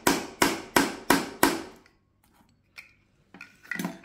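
A steel hammer strikes five times, about three blows a second, on a shotgun shell hull used as a buffer. The blows drive a glass marble into a brass shotgun-shell head to flare it open. The hammering stops about two seconds in, and a few light handling knocks follow near the end.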